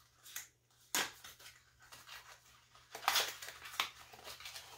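A small cardboard product box being handled and opened: a sharp click about a second in, then a burst of scraping and clicks around three seconds in.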